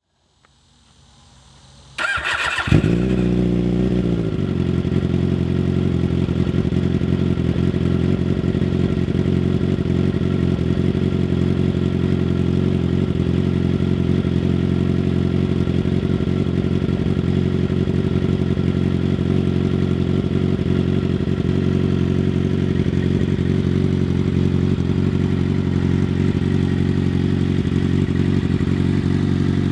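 2006 Suzuki GSX-R600's inline-four with a full Two Brothers exhaust starting up: the starter cranks for under a second about two seconds in, the engine catches and runs high for a moment, then settles into a steady idle.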